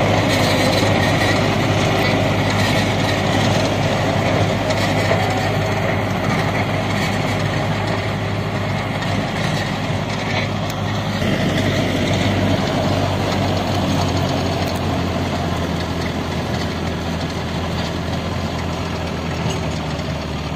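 Tractor diesel engine running steadily under load, driving a Farmpower super seeder whose rotor churns soil and crop stubble: a constant low drone over a dense clatter. It grows a little quieter near the end as the rig moves off.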